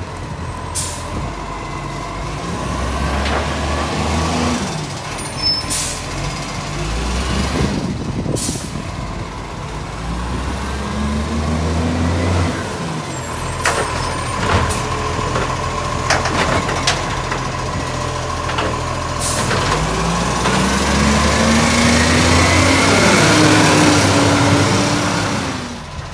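Iveco Acco side-loader garbage truck's diesel engine running, its revs rising and falling several times and loudest near the end, with about five short air-brake hisses along the way.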